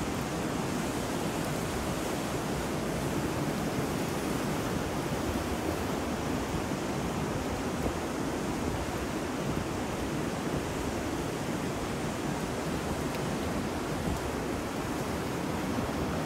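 Ambience of ocean surf mixed with wind and rain: a continuous rushing noise that swells gently and never breaks.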